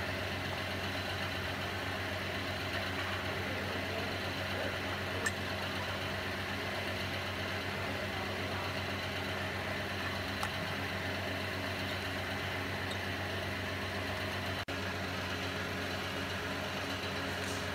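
Electric motor of a woodworking machine running steadily with nothing being cut: a constant, unchanging hum, with a few faint ticks.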